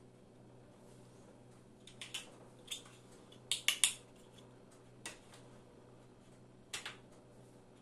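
Large plastic building blocks clicking and knocking together as they are handled and pressed onto one another. A quick run of three or four sharp clicks about three and a half seconds in is the loudest, with single clicks scattered before and after.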